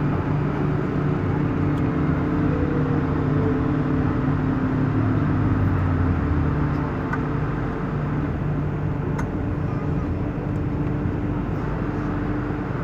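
MTR M-Train electric multiple unit running, heard from inside the carriage: a steady rumble of wheels on rail with a low hum made of several steady tones and a few faint clicks.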